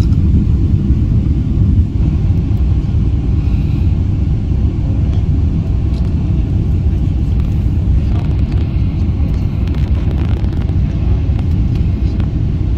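Jet airliner cabin noise during the landing approach: a steady low rumble of engines and airflow, heard from inside the passenger cabin.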